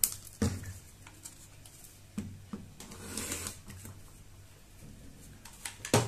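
Rotary cutter rolling along an acrylic ruler and slicing through layered cotton fabric on a cutting mat: one short rasping hiss about three seconds in. Light knocks of the ruler and cutter being handled come before it, with a sharper knock about half a second in and a thump near the end.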